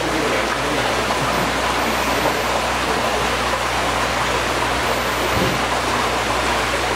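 Steady rushing of water with a low hum beneath it, as from water or air being fed into a koi holding tub.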